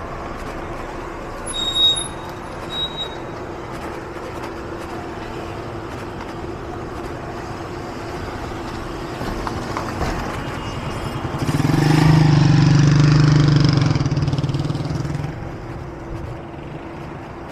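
Street traffic hum, with a motor vehicle's engine passing close by about twelve seconds in: it swells, stays loud for about three seconds, then fades. A brief high squeak comes near the start.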